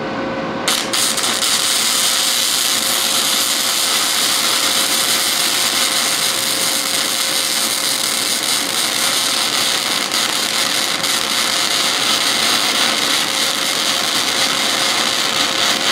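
Wire-feed welder arc crackling steadily as a nut is welded onto a broken exhaust-manifold stud, heating it so it can be turned out. The arc strikes about a second in and runs without a break.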